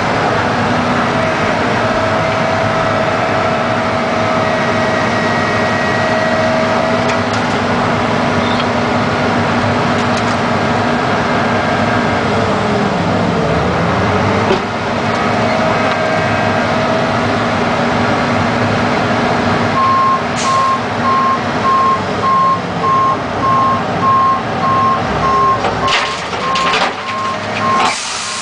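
John Deere 690 excavator's engine and hydraulics running steadily, heard from inside the cab, with the pitch dipping and rising again about halfway through. In the last third, a dump truck's reversing alarm beeps in an even, repeating series as the truck backs up.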